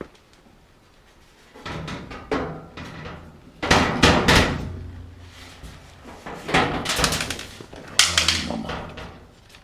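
Sheet-metal dryer cabinet panels clattering and clunking as they are handled and fitted back into place, in several bursts of knocks, the loudest about four seconds in and again near the end.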